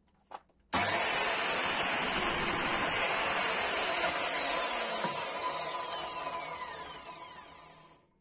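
Electric miter saw starting up about a second in and cutting through a sweet chestnut board, then the blade spins down with a falling whine that fades out near the end.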